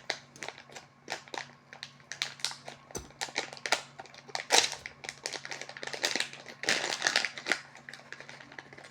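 Plastic packaging bag crinkling and rustling as it is opened and handled, in many irregular sharp crackles.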